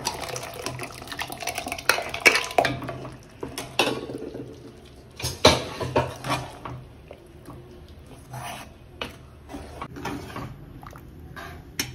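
Steel ladle scraping and clinking against a kadhai and a steel vessel as mashed vegetables are scraped in and stirred into tomato masala. The clinks and scrapes come thick through the first half, the loudest a little past the middle, and thin out to scattered knocks near the end.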